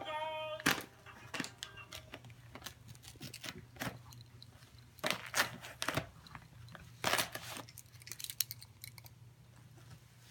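Pembroke Welsh Corgi tearing and crinkling the wrapping paper on a present, in short bursts of ripping every second or two. A voice is heard briefly at the very start.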